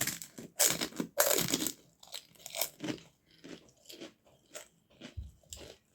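Crisp fried fuchka papad being bitten and chewed. A few loud crunches in the first two seconds are followed by quieter, sparser crunches as it is chewed.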